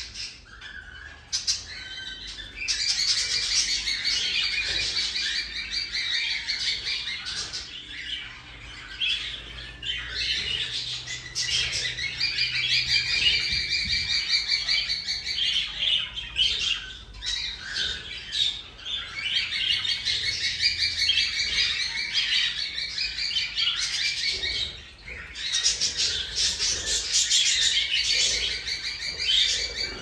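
Young cockatiel calling in long bouts of rapid, pulsing chirps, each bout several seconds long with short breaks between.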